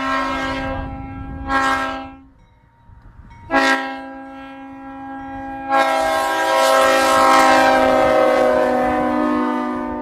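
Vehicle-mounted multi-chime train horn sounding a chord in several blasts. A held blast dies away about two seconds in, with short blasts at about one and a half and three and a half seconds, then a long, loud blast from about six seconds in.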